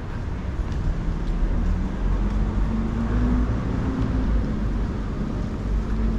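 Outdoor city noise: a steady low rumble like road traffic, with a faint hum that slowly rises in pitch through the middle.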